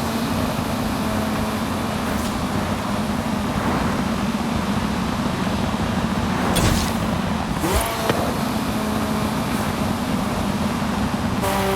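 Ferrari F40's twin-turbo V8 running steadily under road and wind noise, with two short sharp noises a little past the middle.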